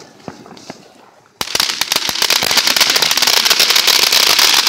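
A firework goes off about a second and a half in with a sudden, loud, dense rapid crackle of many small pops over a hiss, continuing without a break.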